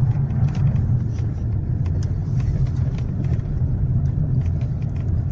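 Inside the cabin of a Toyota Camry Gracia with its 2.5-litre 2MZ-FE V6, driving slowly on a snowy road: a steady low engine and road rumble with light scattered ticks.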